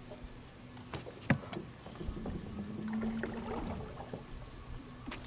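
Small fishing boat sitting on calm water, with water lapping at the hull. A few sharp clicks of fishing tackle come about a second in, and a brief low hum sounds in the middle.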